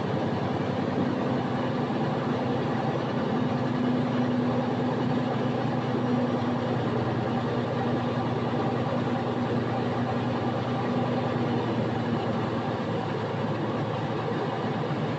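Detroit DD15 inline-six diesel of a Freightliner Coronado SD122 milk tanker running steadily, an even drone whose higher hum fades out near the end.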